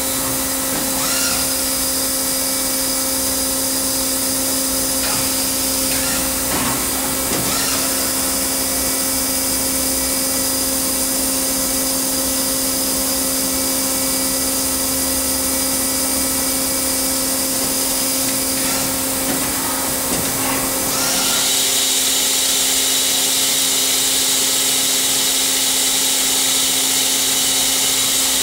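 Tornos Schaublin 65 CNC lathe running: a steady machine hum with a constant tone over a hiss, and a few brief rising and falling whines as its turret and axes move. About 21 seconds in, it gets louder and a higher whine joins in.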